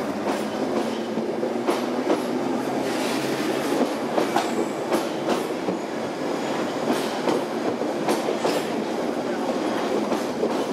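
London Underground Bakerloo line 1972 Stock tube train running past along the platform, its wheels clicking over the rail joints in an uneven clatter over a steady rumble.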